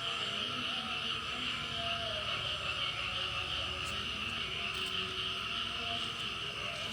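A steady pre-dawn chorus of frogs and insects: an unbroken high, shrill insect drone, with frog calls wavering lower down.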